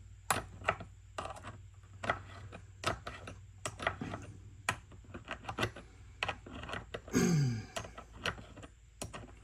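Irregular metallic clicking and clinking of a worn-out saw chain being handled, its links rattling. About seven seconds in there is one louder, short scraping sound that falls in pitch.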